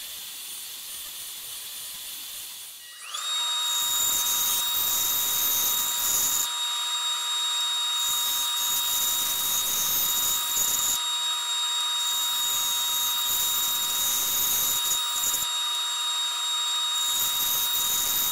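A bandsaw comes up to speed about three seconds in with a steady high whine and resaws a pine board. The loud cutting noise breaks off briefly a few times and comes back. Before it starts there is a quieter run of drum sander noise.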